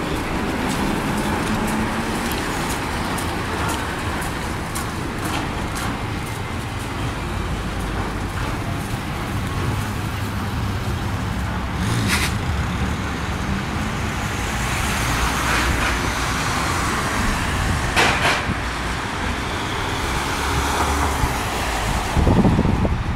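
Street traffic on wet asphalt: an articulated tram pulls away along the rails with a run of wheel clicks over the track in the first few seconds, then cars run past with tyre hiss on the wet road over a steady low rumble. There are sharp knocks about halfway through and again a few seconds later, and a louder low swell near the end.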